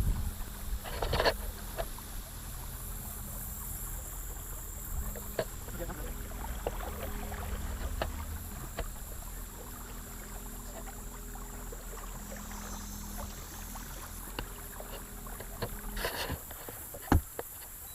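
Boat motor running steadily at low speed, with scattered light clicks and knocks and one sharper knock near the end.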